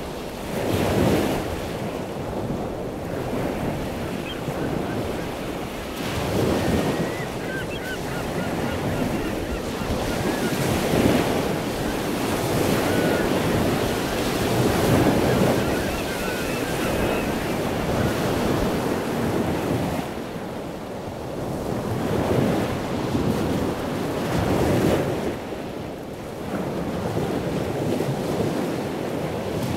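Large ocean waves breaking, a heavy surf noise that swells and eases every few seconds, with wind buffeting the microphone.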